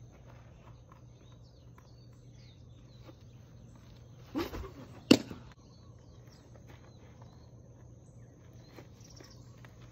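A baseball pitch: a short grunt as the pitcher throws, about four seconds in, then the ball smacking loudly into the catcher's mitt a moment later. Faint bird chirps in the background.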